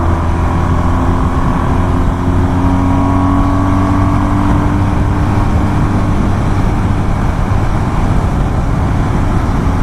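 BMW R1200 GS boxer-twin motorcycle running at a steady cruise, a continuous engine drone heard from on the bike. The engine runs smoothly after a warranty repair, its earlier noise now imperceptible, as the rider says.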